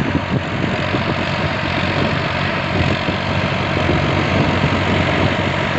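Valtra A950R tractor's diesel engine running steadily under load as it pulls a 14-disc intermediate disc harrow through the soil, growing slightly louder as the tractor comes closer.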